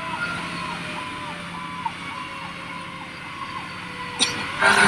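Fire engine sirens heard from inside the cab while responding: an electronic siren rising and falling about twice a second, together with a long siren tone slowly dropping in pitch. A steady engine drone runs underneath.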